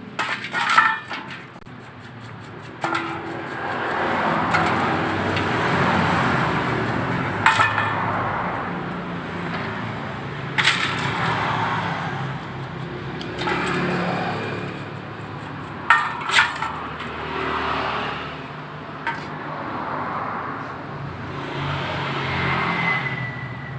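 Small CVT pulley bearings scrubbed with a brush in a metal bowl of cleaning liquid: repeated swishing brush strokes that swell and fade, with a few sharp metallic clinks of the bearings against the bowl.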